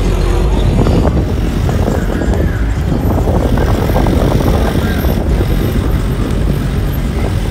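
Car engines running in an open lot, a dense rumble over a deep, steady low hum.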